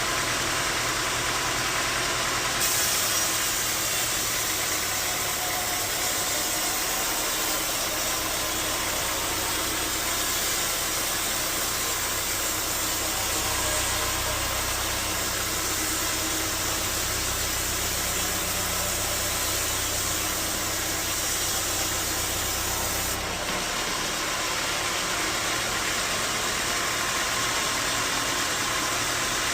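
Bandsaw sawmill running steadily. From about three seconds in until about six seconds before the end, a harsher hiss and a deeper rumble join in as the blade saws through a log.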